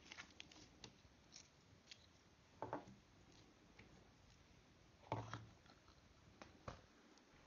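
Soft, sticky slime being squeezed, pressed and pulled apart by hand, making scattered small clicks and pops. There is a louder squelch about two and a half seconds in and the loudest one about five seconds in.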